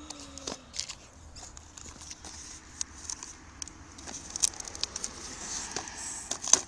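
Scattered clicks, taps and rustles of a cardboard phone box and its packaging being handled close to the microphone, with one sharper click near the end.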